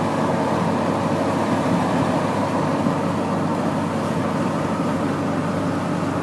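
Steady road and engine noise from inside a moving car, an even rumble and hiss that holds unchanged.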